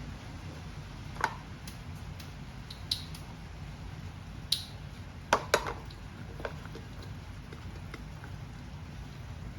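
Utensil clinking against a dish or pan: about six short, sharp clicks scattered over several seconds, two close together about halfway through, over a steady low hum.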